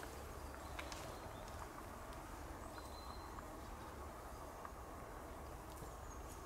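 Faint woodland ambience: a low steady rumble with scattered light ticks and rustles from footsteps in dry grass and undergrowth, and a brief high chirp about three seconds in.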